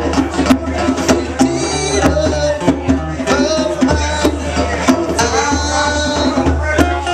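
Live amplified music: an acoustic guitar strummed to a steady beat of about two strokes a second, with a man singing into a microphone and a strong deep bass underneath.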